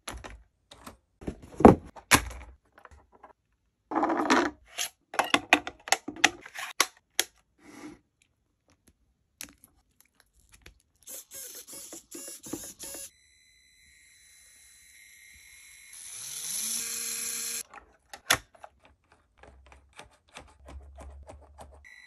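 Clicks, taps and knocks of the small plastic parts of a 1:18-scale Traxxas TRX-4M RC crawler being handled and fitted, in several bursts. Partway through there is a stretch of steady whine that rises in pitch, with hiss.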